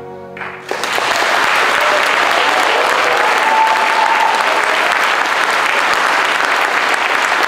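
The music's last held chord stops within the first second, and an audience breaks into loud, steady applause that carries on to the end.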